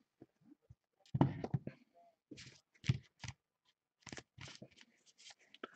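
Foil-wrapped 2018 Panini Unparalleled football card packs rustling and knocking together as gloved hands pick them up from the stack, in short irregular bursts with pauses between.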